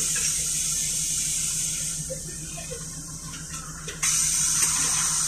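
Cabin noise of a moving Volgabus-5270.G4 city bus: a steady low drone from its Weichai WP7NG280E51 natural-gas engine under a loud, even hiss. The hiss fades about two seconds in and returns abruptly about four seconds in.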